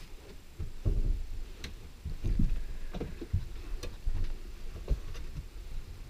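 Irregular low thumps and sharp clicks, about a dozen over six seconds: footsteps on a motorhome floor and hands working at the engine cover between the front seats. The engine is not running.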